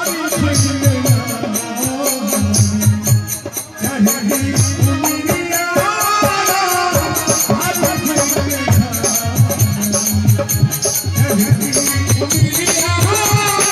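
A man singing a wavering folk-style melody over a steady, even drum beat and a shaking rattle keeping time.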